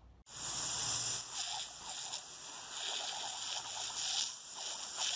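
A garden hose's jet of water hissing and splashing as it sprays into a Rottweiler's open mouth. The hiss starts suddenly just after the beginning and runs on, rising and falling in strength.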